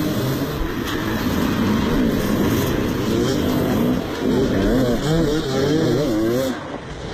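Several motocross bike engines revving, their pitch rising and falling repeatedly as the pack pulls away from the start, with a short dip in level near the end.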